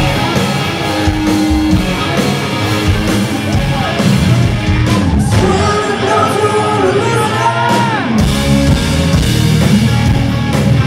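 Rock band playing live at full volume, with a voice singing over the band.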